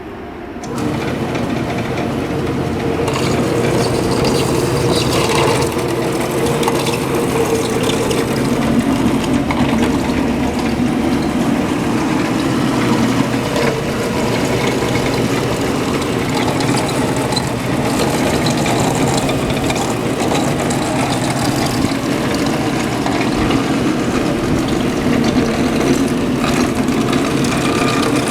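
Ramco RS-90P industrial metal bandsaw running, a steady mechanical hum with a rasping, grinding edge. It grows louder about a second in, then holds level.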